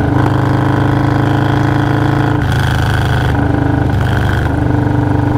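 Stage 2 Harley-Davidson Milwaukee-Eight 117 V-twin running at a steady, even pitch under way on the motorcycle.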